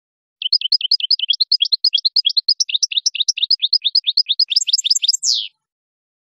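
European goldfinch singing: a rapid run of high, quick falling notes, about eight a second, lasting about five seconds. It ends in a harsher downward slur and stops abruptly.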